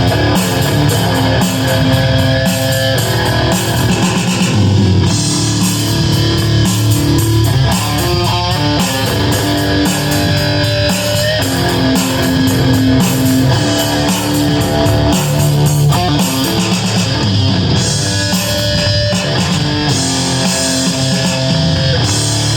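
Electric guitar played through a Rez Distortion, with sustained distorted notes and chords that change every second or two.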